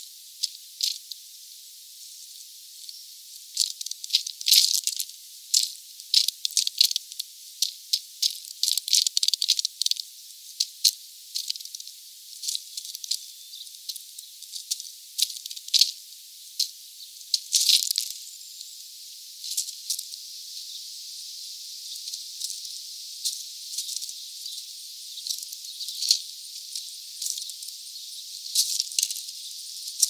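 Birds at a feeder making irregular sharp clicks and short rattles, some in quick clusters, over a steady hiss.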